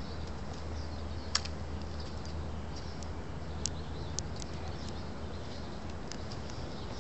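Outdoor background: a steady low hum with faint, short, high bird chirps scattered through it, and a few short sharp clicks, the loudest about a second and a half in and a small cluster near the four-second mark.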